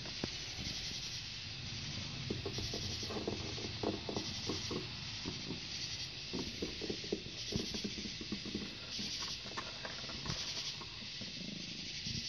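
Night insects calling in high-pitched pulses about once a second over a steady hiss, with soft scattered rustles and small clicks close by.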